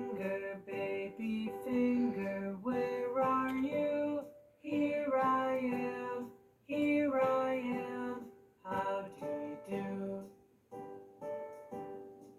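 Children's song music: a simple pitched melody in short phrases, with brief pauses between them.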